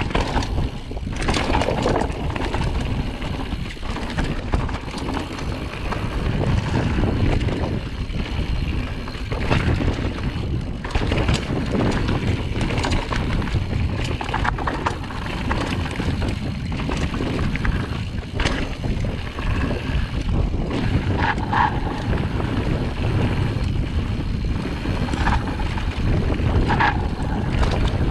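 Mountain bike descending a rough rocky trail: steady wind rush on the camera microphone and tyre rumble, with frequent sharp clattering knocks from the bike as it hits rocks and roots.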